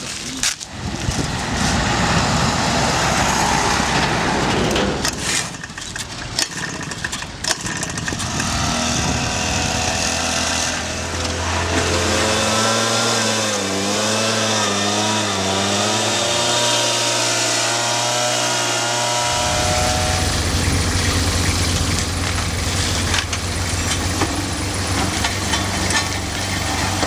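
Motorised backpack blower's small engine running, its pitch wavering as the nozzle blows debris off the road edge. From about two-thirds of the way in, a steady low diesel engine hum takes over, from a small tandem road roller.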